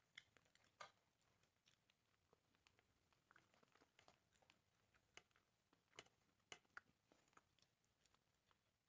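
Faint, scattered clicks and crinkles of an aluminium foil tray as fingers pull apart grilled chicken in it, with soft chewing.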